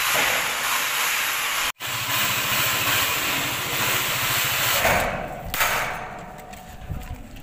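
Electric drill boring through galvanized sheet steel into a GI pipe: a steady, harsh, hiss-like grinding. It cuts out abruptly just under two seconds in, starts again, and tapers off after about five seconds.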